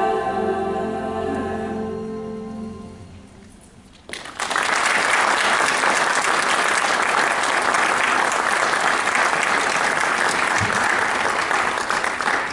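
A boys' choir holds a final chord that fades away over about three seconds. After a short pause, about four seconds in, an audience applauds steadily.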